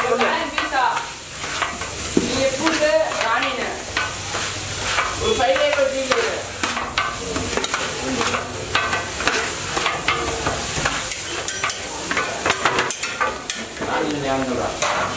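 A metal spatula repeatedly chopping, scraping and tossing food on a hot flat iron griddle (tawa), making rapid, irregular clanks over the steady sizzle of frying.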